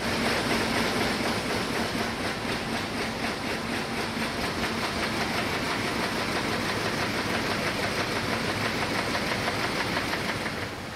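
Kern 3200 inserting system running at speed, its paper-web cutter and sheet transport making a dense, fast, even clatter over a steady mechanical whirr. The noise falls back shortly before the end.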